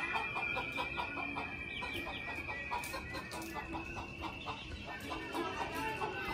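Chickens clucking in a quick run of short calls, about three a second, over a steady thin high-pitched tone.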